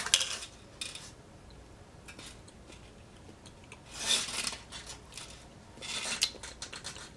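Handling noises of small plastic sauce cups moved on a ceramic plate: a few short scraping rubs, the loudest about four seconds in, with light clicks between.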